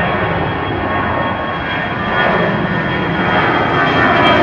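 Airbus A319-100 jet engines at takeoff climb power as the airliner passes low overhead: a steady rumble with a high whine, growing louder.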